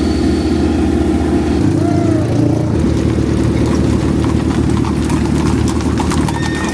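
A motor vehicle's engine running steadily, loud and close.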